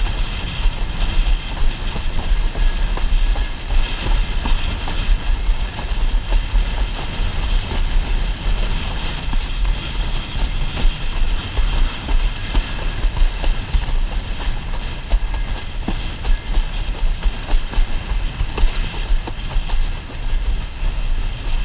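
Wind buffeting the microphone and water rushing under a windsurf board sailing across choppy sea, with a steady heavy rumble and many small knocks and slaps of the board on the chop.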